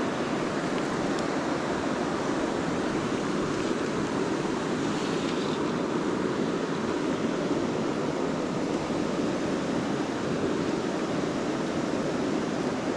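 A river rushing steadily, a constant wash of flowing water.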